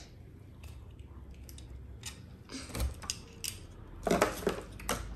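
Plastic Lego Duplo pieces being handled and fitted together: scattered light clicks and clacks, a few at first and more and louder near the end.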